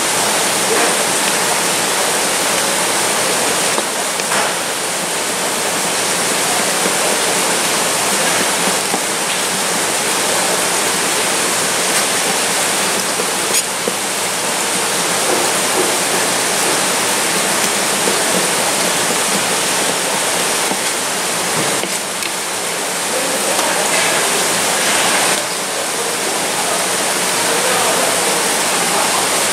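A steady rush of running water, with a few faint taps of a kitchen knife slicing squid on a plastic cutting board.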